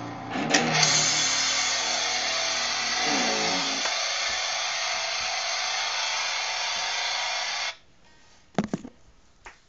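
Distorted electric guitar through a small Ibanez amp. One chord is struck about a second in and left to ring steadily, then is cut off abruptly about eight seconds in. Two short knocks follow near the end.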